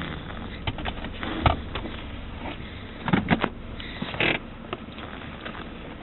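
A little boy snoring in his sleep, a few irregular rough breaths.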